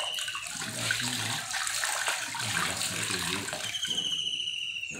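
Water from a garden hose flushing through a motorcycle's radiator and splashing steadily into a bucket below, a continuous rush and spatter of water.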